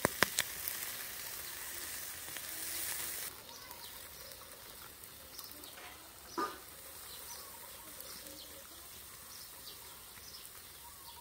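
Eel pieces sizzling on a wire grill over a charcoal fire, the hiss easing off about three seconds in. A few sharp clicks come just after the start, and a single knock about six and a half seconds in.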